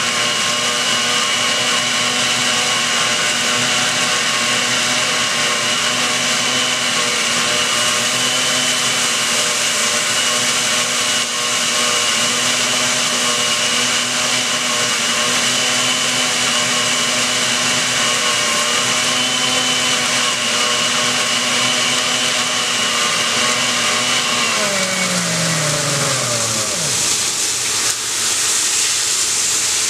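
Countertop blender running steadily while puréeing a tomato-and-chile salsa, a constant motor whine with a high hum. About 25 s in it is switched off and the motor pitch falls as the blades spin down. A steady hiss continues underneath.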